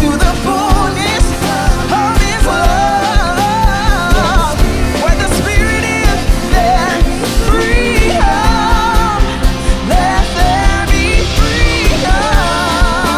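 Worship band playing a rock-style song with a steady drum beat and a voice singing over it.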